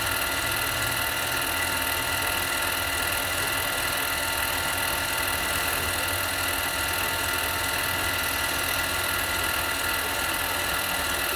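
Harbor Freight mini lathe running steadily while turning a hub-centric ring, its motor and gearing giving a constant whine made of several high, steady tones.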